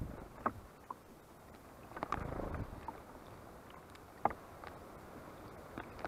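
Great tits and blue tits bathing in a shallow bird bath: the water splashes as they flutter their wings, with scattered sharp taps and a longer flurry of splashing about two seconds in.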